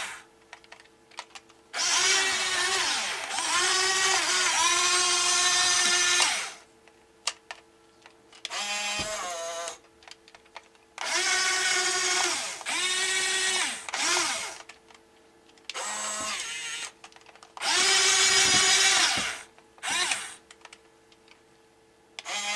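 Small electric gear motors of a HuiNa 1550 1/12-scale RC excavator whining in several separate bursts as it drives and turns on its tracks. The longest burst lasts about four seconds.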